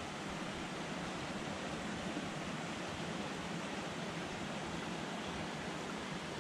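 Water rushing steadily through an old dam: an even hiss of spilling water without breaks.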